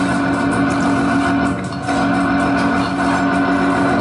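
Dark ambient noise drone played live on electronics: a dense wall of hiss and rumble with several steady held tones, dipping briefly about a second and a half in.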